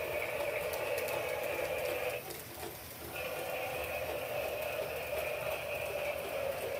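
Battery-powered toy train running around its plastic track, a steady motor whir that drops away for about a second midway and then resumes.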